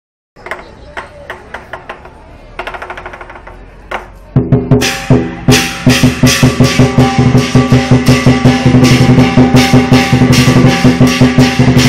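Chinese drum and cymbal ensemble playing: soft taps and a quick roll at first, then about four seconds in the full group comes in loud with a steady, fast beat of drum strokes and crashing, ringing cymbals.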